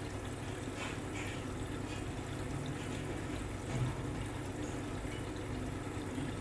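Hoover H-Wash 300 washing machine in its third rinse: a steady sound of water running into and washing around the drum, over a low hum, with a small bump just under four seconds in.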